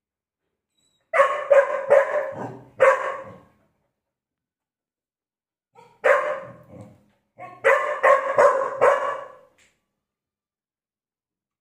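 Puppy barking in two bouts of several barks each, starting about a second in and again about six seconds in, during a squabble between two puppies over a treat.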